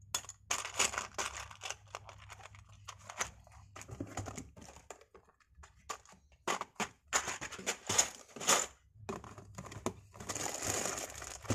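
Small plastic Lego pieces clicking and clattering in a clear plastic tub as a hand rummages through them and the tub is moved. A longer, steadier rustle follows near the end.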